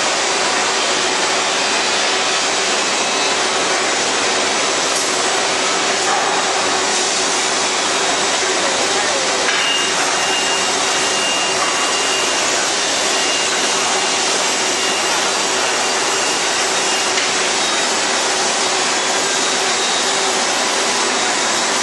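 CNC band saw running steadily while it cuts wooden chair-leg blanks fed on its automatic carriage: a loud, even machine noise with a faint high whine coming in about halfway through.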